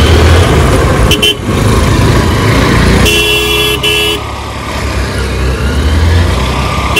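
Motorcycle engine running under steady road and wind noise, with a vehicle horn sounding: a short toot about a second in, then a longer blast around three seconds in, broken briefly near its end.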